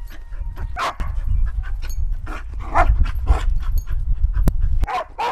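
Dog panting in short, irregular breaths while jumping up on a person, over a low rumble that cuts off sharply near the end; one sharp click a little after four seconds in.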